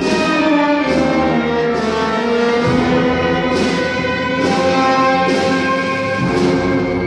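Brass band playing a funeral-march arrangement of a hymn, the brass holding sustained chords that change every half second to a second.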